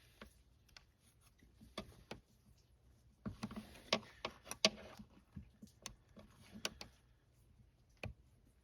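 Small metallic clicks and scrapes of a tool working a wrist pin circlip out of a snowmobile engine's piston, scattered at first, with a cluster of sharper clicks about three to five seconds in.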